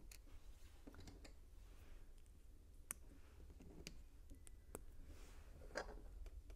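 Faint, irregular clicks of small plastic LEGO pieces being handled and pressed onto a small brick-built shark.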